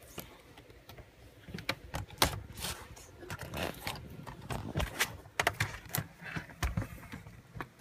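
Irregular small clicks, taps and plastic rustling from hands handling a laptop LCD panel and reconnecting its cable connectors.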